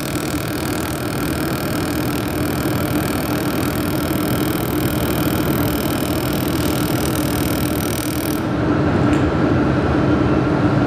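Handheld laser welding machine running with a steady mechanical hum, and a high hiss from the welding gun while it welds a stainless-steel seam; the hiss cuts off sharply about eight seconds in as the weld stops, leaving the hum.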